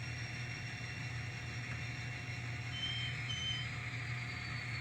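N scale locomotive's sound decoder playing a steady engine-running sound through its tiny speaker, with two short high beeps about three seconds in.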